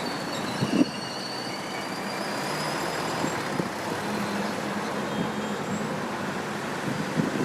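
Steady rumble and hiss of passing vehicles at a level crossing.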